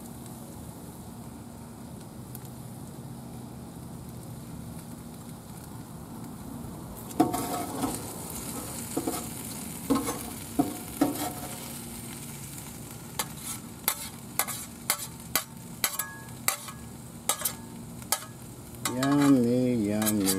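Food sizzling on a Blackstone flat-top griddle while a metal spatula scrapes and clicks against it. The clicks come thick and fast over the second half. A brief voice sounds near the end.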